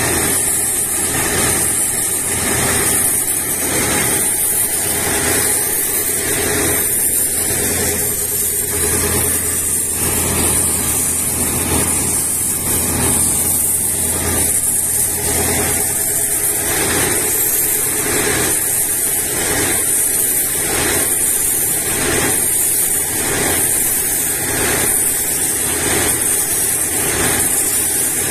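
Water-well drilling rig running steadily while the drill stem turns in the hole, with a regular pulsing beat and a constant high hiss.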